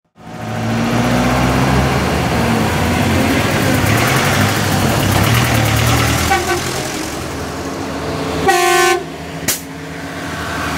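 Classic Pegaso lorries driving past on a wet road, diesel engines running under tyre hiss. About eight and a half seconds in, a truck horn sounds for about half a second, then gives a short second toot.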